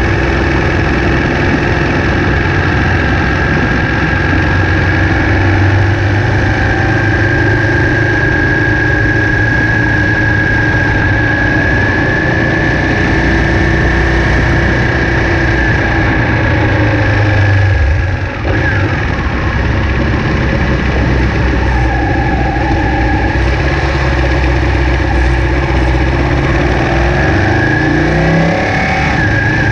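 Ducati 959 Panigale's L-twin engine running steadily at town speed, heard from on the bike while riding. The note drops briefly about two-thirds of the way through as the throttle closes, and the revs rise near the end as it accelerates again.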